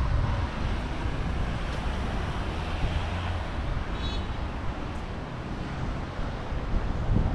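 Wind buffeting the microphone, a fluctuating low rumble over a steady outdoor rush of noise.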